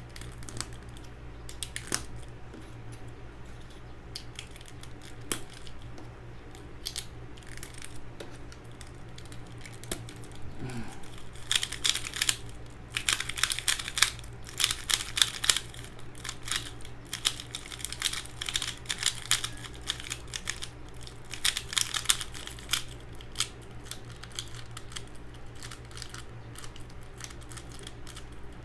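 Plastic pieces of a Valk 3 speedcube clicking and clacking as it is handled and turned, with scattered single clicks at first and two busy stretches of rapid clicking in the middle.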